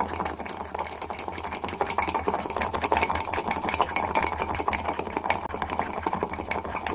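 Spoon beating instant coffee, sugar and a few drops of water in a mug, clicking rapidly and continuously against the sides: hand-whipping the mixture into froth for beaten coffee.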